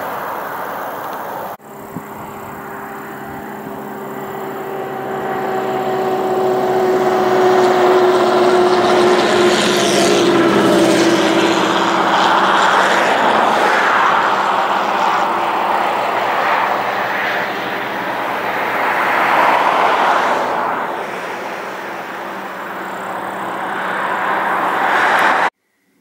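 An engine drone over a steady rushing noise, swelling and then fading, its tone sinking slightly as it passes; it cuts off suddenly near the end.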